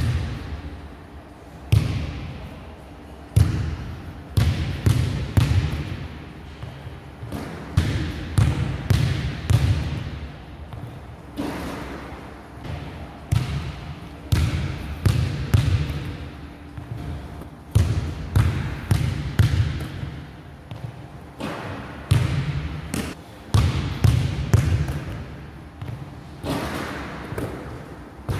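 A basketball is dribbled on a hardwood gym floor, in runs of quick bounces with short pauses between them. Each bounce echoes in the large hall.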